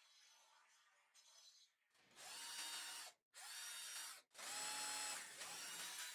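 Cordless drill/driver running under load as it drives a screw into MDF. It starts about two seconds in and comes in three runs of about a second each, broken twice by brief stops, then carries on slightly quieter.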